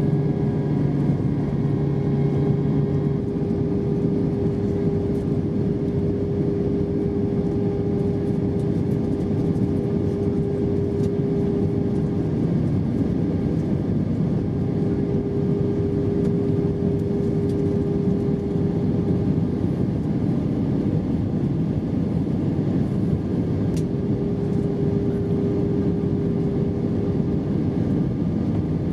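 Steady cabin noise inside an Airbus A320-232 on the descent to land: the rush of air along the fuselage with the drone of its IAE V2500 engines. A lower hum drops out about three seconds in.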